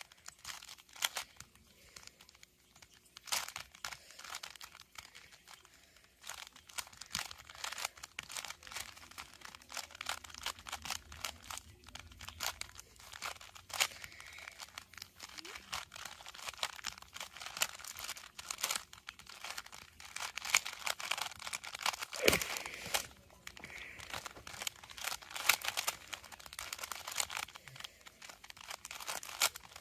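3x3 Rubik's Cube being turned fast during a timed speedsolve: a continuous, irregular stream of plastic clicks and clacks as the layers are turned.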